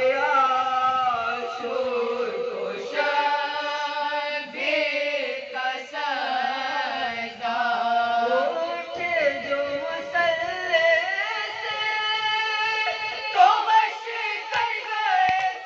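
Women's voices reciting a marsiya, a Shia Urdu elegy, together and unaccompanied: a lead voice at the microphone with others singing along in long, bending, held notes.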